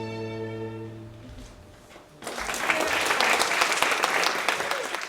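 A string quartet (two violins, viola and cello) holding a final chord that fades out about a second in; after a short pause, audience applause breaks out and continues.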